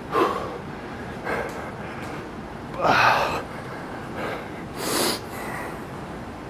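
A man's hard, sharp breaths through nose and mouth, five in a row about every second or so, as he does standing ab crunches; the one about three seconds in is the loudest.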